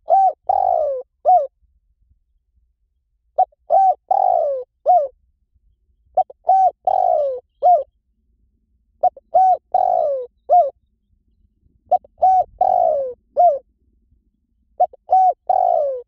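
Spotted dove cooing, a lure call for drawing in wild doves: a phrase of about five low coos, the middle one longer and falling in pitch. The phrase repeats about every three seconds, six times.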